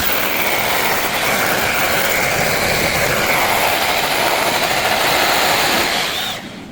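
Power saw cutting through a log: a loud, steady grinding noise with a wavering high whine that starts abruptly and dies away about six seconds in.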